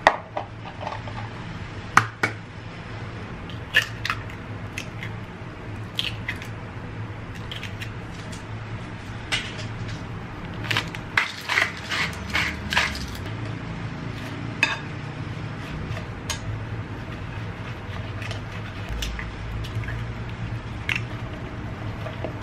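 Sharp knocks and clicks against a glass mixing bowl as eggs are cracked into shredded cabbage and carrot and seasoning is added, with a quick run of clicks and taps about halfway through.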